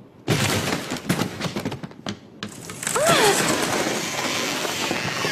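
Cartoon crash effects: a sudden run of cracking and smashing impacts as walls and wood break apart, followed by a heavy continuous rumble of crumbling debris.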